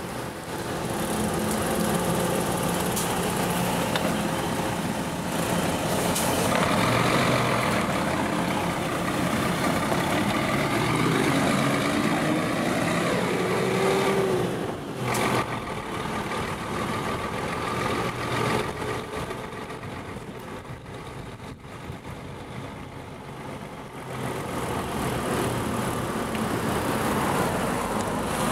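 Road traffic with the engine of a large vehicle, such as a truck, running close by. A rising engine note comes briefly about halfway through, and the traffic eases for a few seconds near the end.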